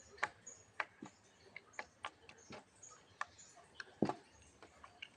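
Stiff homemade clay slime being kneaded and squeezed by hand, giving irregular sticky clicks and pops, a few louder than the rest; the slime is still too hard and is being worked with added water.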